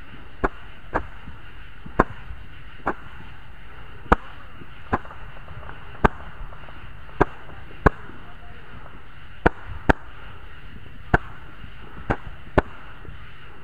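Roman candle firing, each ball launching with a sharp pop, about one a second at irregular spacing.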